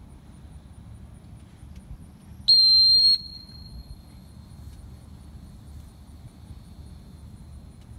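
A single loud, high whistle blast of steady pitch, about two-thirds of a second long, starting and stopping sharply about two and a half seconds in, with a faint lingering tail at the same pitch.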